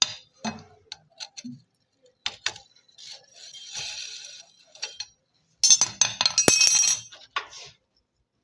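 Metal tools and parts clinking and clicking as they are handled, with a short burst of rapid metallic clattering about six seconds in.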